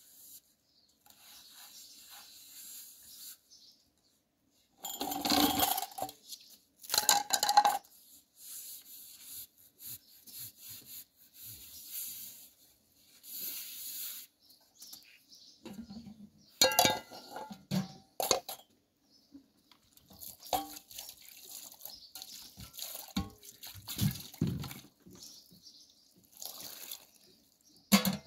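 Dishes being washed by hand: metal pots, lids and plates clattering and scraping against each other, with water splashing and pouring between the clatters. The loudest clanks come about five and seven seconds in, and again just past the middle.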